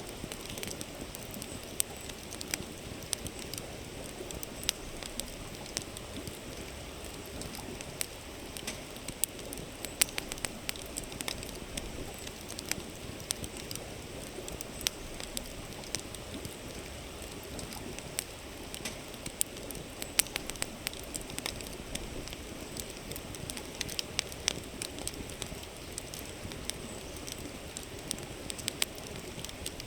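Wood campfire crackling, with frequent sharp, irregular pops, over the steady rush of a flowing river.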